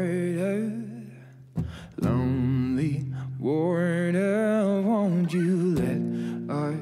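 Background music: a singer holds two long phrases with wavering pitch over steady acoustic guitar accompaniment, with a short lull between them.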